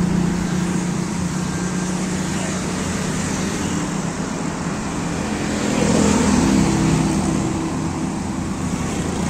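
Road traffic on a main road: vehicle engines and tyres running past steadily, swelling as a motorcycle passes close about six to seven seconds in.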